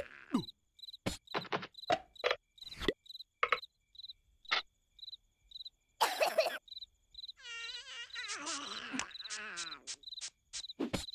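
Cartoon soundtrack: crickets chirping about twice a second in the background. Over them come short clicks and slaps, and wordless falling squeals and a wavering whine from the cartoon larvae.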